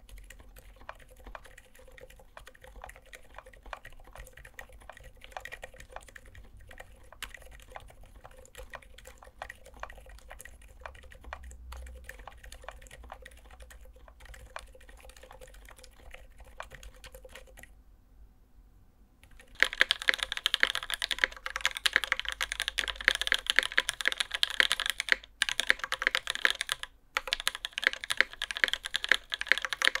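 Typing on a Skog Reboot custom mechanical keyboard with lubed and filmed Serika silent switches, very, very quiet. After a short pause about two-thirds of the way in, much louder typing on a Singa Jaguar TKL with a 2 mm polycarbonate plate and lubed linear switches.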